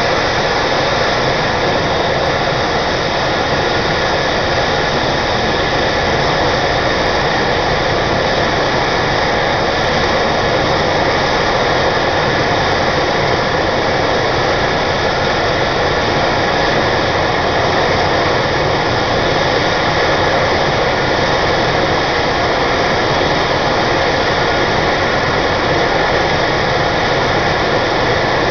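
Medevac helicopter's turbine engines and rotor running on the ground before takeoff: a loud, steady turbine whine over a broad rushing noise.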